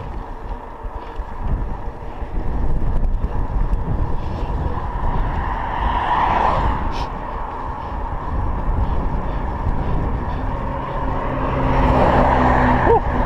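Wind and road rumble on a bicycle-mounted microphone while riding. A car passes about six seconds in. A van passes close alongside near the end, its engine humming as it goes by.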